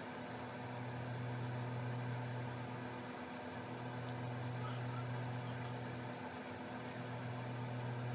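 A steady low hum, like a small motor or appliance running, whose low tone drops out briefly about every three seconds.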